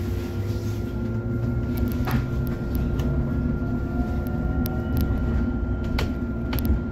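MAN city bus driving, heard from inside the cabin: a steady engine and drivetrain drone with scattered rattles and clicks from the interior, and a faint rising whine partway through.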